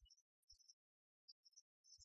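Near silence, broken by faint, brief snatches of background music with digital silence between them.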